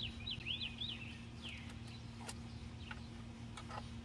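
A small songbird singing a quick twittering phrase that ends with a falling note, fading out about two seconds in. Then a few light sharp clicks from the plastic housing of the weather sensor unit as it is closed up and handled.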